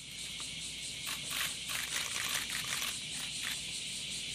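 A steady, high-pitched insect chorus, pulsing more strongly for a couple of seconds in the middle.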